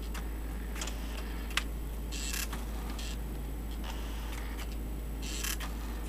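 Brother EP-43 battery-powered thermal laptop typewriter being switched on with the Code key held to start its built-in demo: sparse mechanical clicks and a few short buzzes from its print mechanism, the sharpest click about one and a half seconds in.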